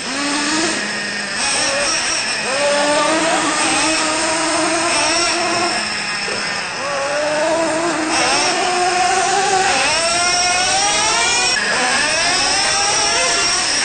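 Traxxas Revo 3.3 nitro RC truck's small two-stroke nitro engine revving up and down again and again, its pitch rising and falling every second or two.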